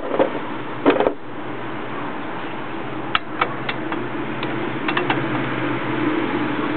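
Hand tools clicking and knocking during work on a Jeep's front axle: a loud pair of knocks about a second in, then a scattered run of lighter clicks, over a steady background hum.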